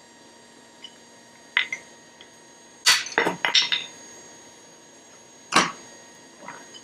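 Steel blacksmith tongs and stock clinking and knocking at the forge: a single sharp clink, then a quick run of about five metal strikes around three seconds in, and another clink late on, over a faint steady hum.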